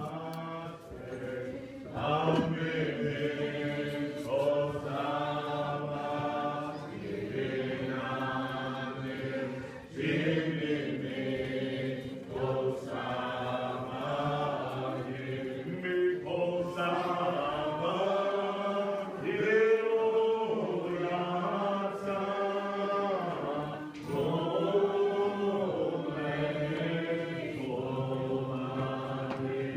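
A church congregation singing a hymn in the Muscogee Creek language, many voices together in long held phrases with short breaks between them.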